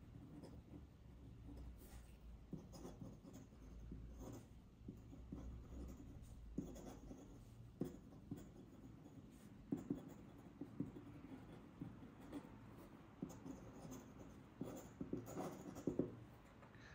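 Metal nib of a feather-quill dip pen scratching across paper in faint, irregular strokes as words are handwritten, a little louder near the end.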